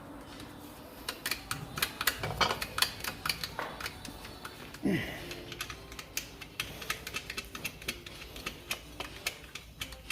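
Rapid, uneven metallic clicking of a hand ratchet running nuts onto a gearbox mounting bracket, with a short falling sound about five seconds in.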